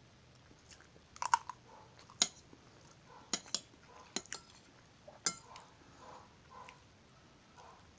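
A metal spoon and fork clinking and scraping against a ceramic plate of rice and scrambled eggs: a string of sharp clinks, the loudest just over a second in and again about two seconds in, with softer scrapes between.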